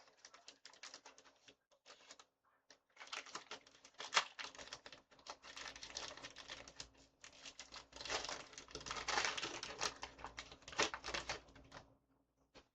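A Pokémon trading-card booster pack being opened and handled: the wrapper crinkles and rustles in a stream of quick small crackles, busiest through the middle.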